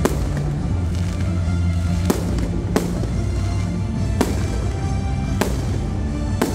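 Aerial fireworks bursting overhead: about six sharp bangs, one to two seconds apart, over music with a steady low bass.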